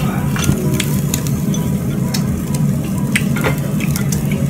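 Meat sizzling on a tabletop yakiniku grill over a steady low hum, with scattered light clicks of chopsticks against bowls.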